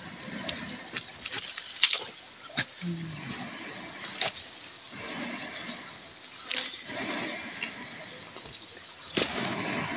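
Steady high-pitched drone of tropical forest insects, with scattered sharp clicks and rustling from a bamboo fishing rod and line being handled close by.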